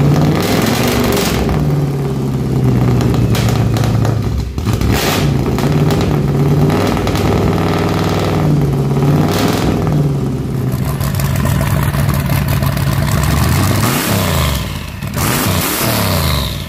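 Freshly built 383 stroker small-block Chevy V8 in a 1957 Bel Air, running at a steady idle. The throttle is blipped several times so the revs rise and fall, with a couple of quick revs near the end.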